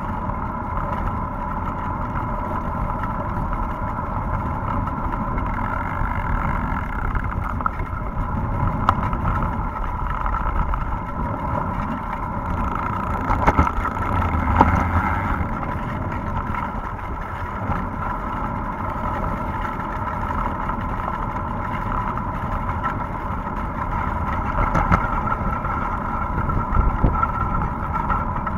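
Wind buffeting the camera microphone while a bicycle tyre rolls over a wet road, with a steady hum throughout. There are a few louder gusts or bumps about halfway through.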